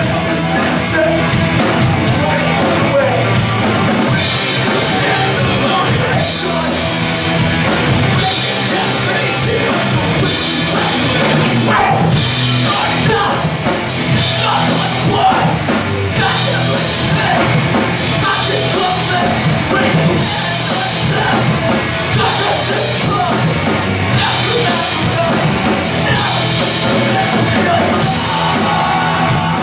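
Live punk rock band playing a song loud: distorted electric guitars, bass and a drum kit with crashing cymbals, and shouted vocals at times.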